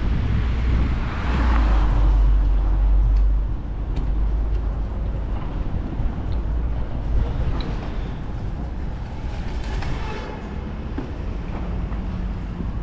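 City street ambience: passing traffic, with a heavy low rumble for the first three seconds or so that then eases, and scattered small clicks and knocks after it.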